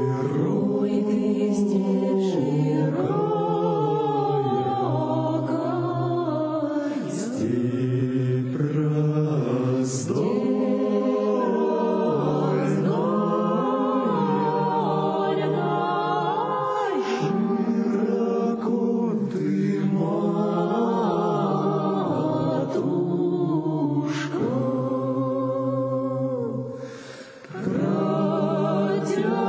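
Russian folk vocal ensemble singing a slow spiritual song in long, drawn-out phrases, with a short break about two seconds before the end.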